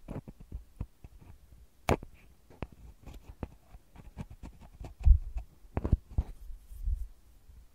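Wooden ear pick scratching and tapping on a microphone's metal grille, close-miked: irregular crackly scrapes and small clicks, with a sharper click about two seconds in and a few low bumps from about five seconds on.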